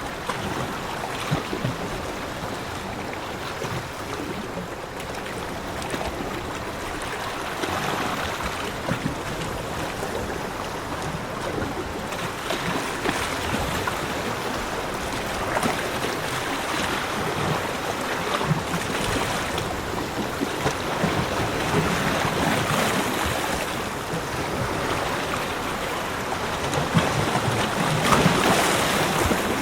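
Ocean surf washing onto a beach: a continuous rush of breaking waves that swells and eases every few seconds, loudest near the end.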